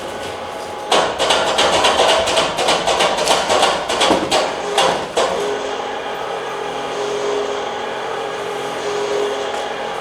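Rapid, repeated hammer blows knocking on the wooden joints of an old danjiri as it is taken apart, several strikes a second for about four seconds. After that comes a steady hum with a repeating higher note.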